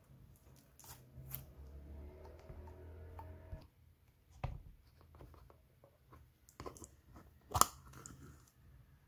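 Slime being played with by hand: irregular soft crackles, clicks and squishes, with a few sharper clicks, the loudest near the end.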